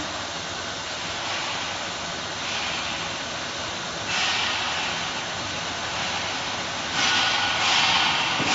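CNC PVC profile bending machine running as it feeds a uPVC window profile through its rollers and bends it: a steady mechanical hiss that gets louder in steps, about four and seven seconds in.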